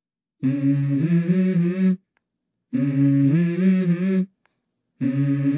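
Background music: the opening of a song, a short wordless hummed vocal phrase played three times with dead silence between.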